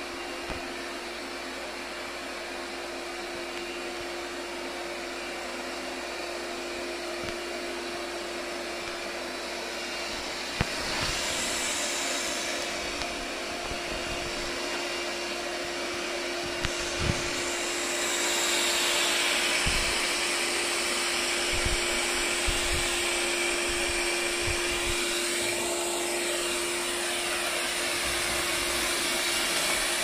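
Lydsto W2 robot vacuum running: a steady fan whir with a constant hum, growing louder from about ten seconds in as it comes close. A few soft knocks sound along the way.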